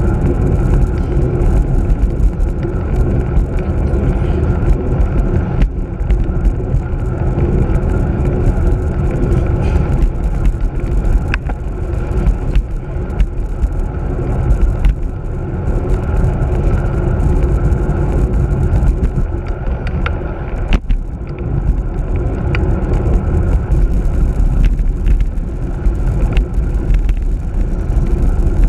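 Wind rumbling on the microphone of a camera mounted on a moving road bicycle, mixed with tyre and road vibration from riding, with a few sharp clicks along the way.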